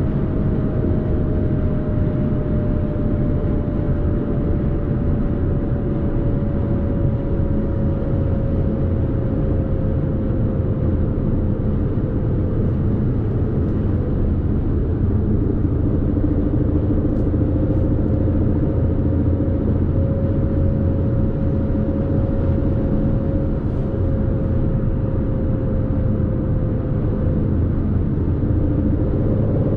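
Aston Martin Vantage's 4.0-litre twin-turbo V8 cruising at steady, light load, with no revving, under a low road and tyre rumble. A faint hum sinks slowly in pitch over the first dozen seconds, then holds steady.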